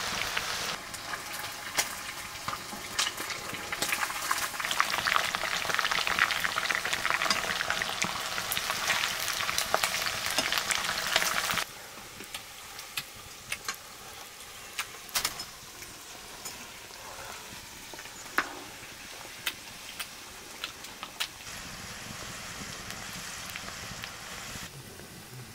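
Food frying in hot oil in a cooking pan: a dense, crackling sizzle for about the first twelve seconds, then it drops suddenly to a much quieter sizzle with scattered pops.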